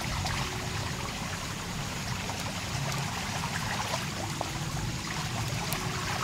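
Steady trickle of running water, with a few faint light clicks.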